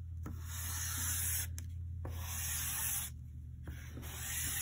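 Chalk pastel scratching across construction paper as wavy lines are drawn: three long strokes of about a second each with short pauses between, over a low steady hum.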